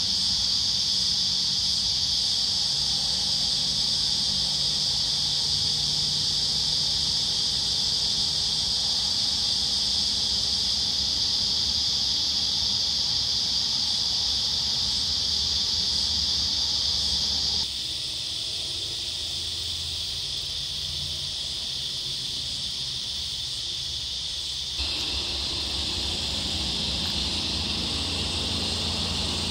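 Steady, high-pitched drone of an insect chorus in the bush, with a faint low rumble beneath. The drone drops abruptly in level about two-thirds of the way through and comes partly back up near the end.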